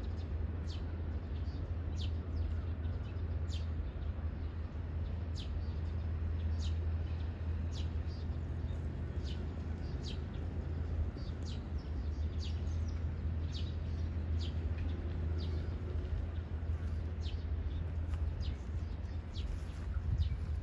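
Small birds chirping, short high chirps that drop in pitch, coming one or two a second at irregular intervals, over a steady low rumble.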